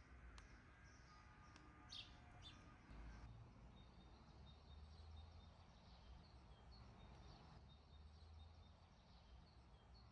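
Near silence: faint outdoor ambience with small birds chirping in the distance, a few short high chirps about two seconds in and faint repeated chirps after.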